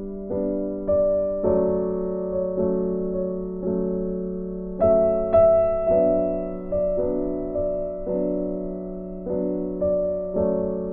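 Background piano music: a slow, gentle tune in which each note starts sharply and rings away, a new note every half second or so.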